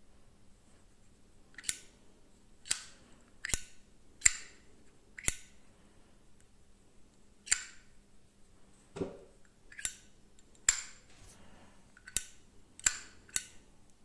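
Zippo lighter's hinged metal lid clicking open and snapping shut, about a dozen sharp metallic clicks at uneven intervals, with one duller knock about nine seconds in.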